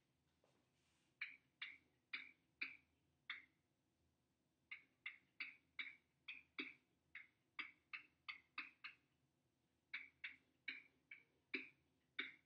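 Marker writing, a quick series of short squeaky strokes at about two a second in three runs with brief pauses between.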